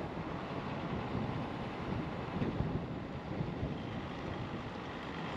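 Diesel Jeep driving slowly along a street: a steady mix of engine and road noise, with some wind on the microphone.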